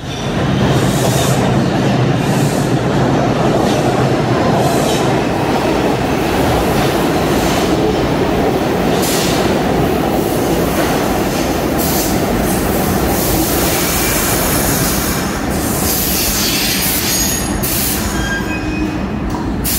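New York City subway R62A train pulling into a station on a curve, its wheels rumbling and clattering on the rails. High-pitched wheel and brake squeals come in the later seconds as it slows to a stop.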